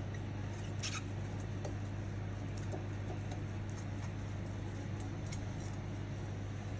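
Soft scuffing and faint light ticks of a silicone pastry brush spreading oil over a glass baking dish, over a steady low hum.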